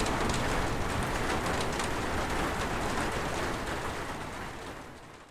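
Steady rain falling, with individual drops heard among the hiss, fading out over the last second or so.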